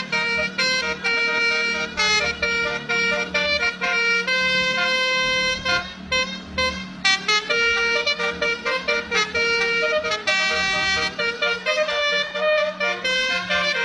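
Basuri telolet bus horn playing a quick tune of short, multi-tone honked notes with a few longer held ones, over a steady low hum.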